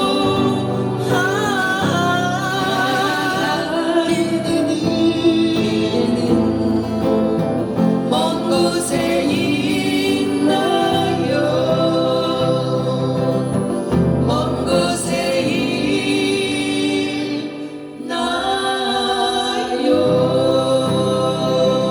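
Live singing of a song with acoustic guitar accompaniment, with a brief lull a few seconds before the end.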